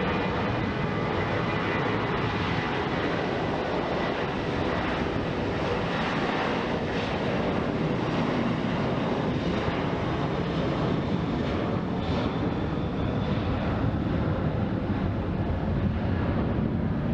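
Steady jet airliner engine noise at an airport runway, even in level, with no distinct events.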